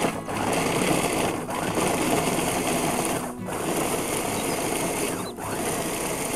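Electric food chopper running, its blades chopping shallots, garlic and chillies, pulsed in runs with a brief stop about every two seconds.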